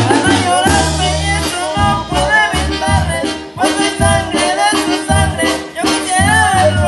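A live Mexican banda playing: trumpets and trombones carry a wavering melody over a low bass line pulsing in a steady beat.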